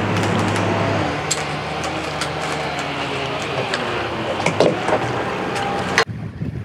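Catamaran's engine running steadily as the boat moves away from a just-released mooring ball, its note changing about a second in, with scattered clicks and the sound of water. Near the end it cuts abruptly to quieter wind noise on the microphone.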